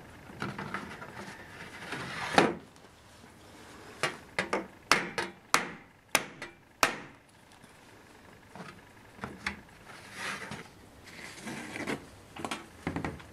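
A small hammer tapping the wooden corner keys of a painting's stretcher to drive them in and tighten a slack canvas: a run of about eight sharp taps in the first half. Later come softer, duller taps, fingers tapping the stretched canvas, whose sound tells how taut it is.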